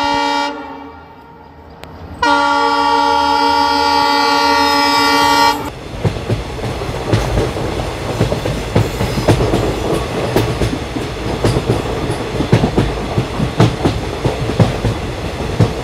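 Recorded train sounds played over a sound system: the tail of one horn blast, a second long blast of about three seconds, then the rhythmic clickety-clack of train wheels running over rail joints.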